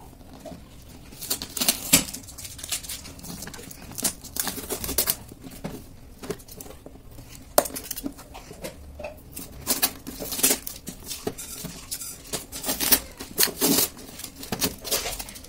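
Plastic packing tape being peeled and ripped off a cardboard parcel: irregular crackling rips and rustles, with a few sharp snaps.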